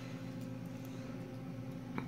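Steady low mechanical hum in the room, with a light click near the end.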